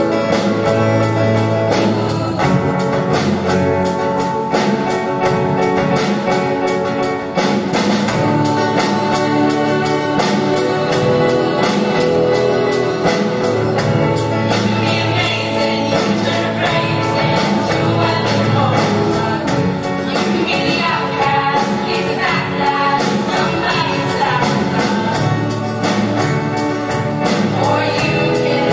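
A show choir singing with a live band over a steady beat. The higher voices grow fuller about halfway through.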